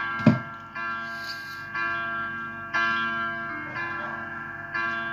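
Background music of bell-like chimes, a new ringing note struck about once a second and fading away. About a quarter second in, a short loud sweeping thump falls in pitch, the loudest sound.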